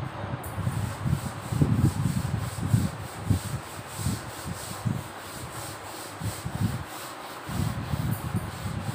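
Chalkboard duster rubbing over a chalkboard in quick repeated strokes, wiping off chalk writing; the strokes ease off for a couple of seconds past the middle, then pick up again.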